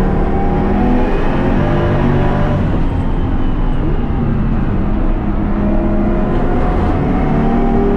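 BMW S55 inline-six with a single turbo conversion, running hard on track: engine pitch climbs, drops briefly a couple of times, and climbs again.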